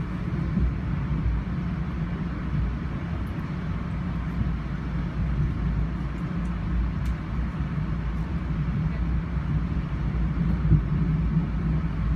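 Steady low rumble of trains running on track, heard from inside a moving commuter coach while an Amtrak train rolls alongside.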